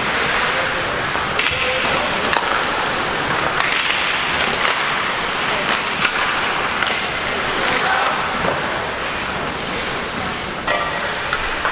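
Ice hockey skates scraping and carving the ice rink, with sharp clicks now and then from sticks and puck.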